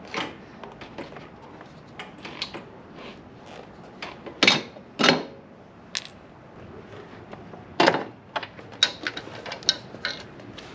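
Metal hand tools (a wrench and socket extension) clinking and clanking as they are handled and set down on concrete, with the odd scrape, during removal of the front shock bolts. There are several sharp separate clinks, loudest about four and a half and five seconds in, and one with a brief high ring about six seconds in.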